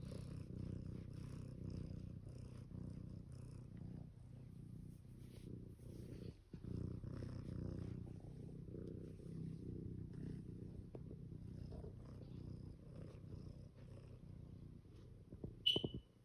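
Tabby cat purring steadily while being stroked, with a short break about six and a half seconds in. A brief high-pitched squeak sounds just before the end.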